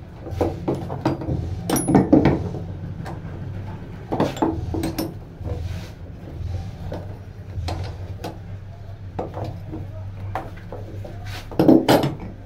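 Irregular metallic clinks, scrapes and knocks of hand tools and parts on a car starter motor being reassembled, loudest about two seconds in and again near the end, over a steady low hum.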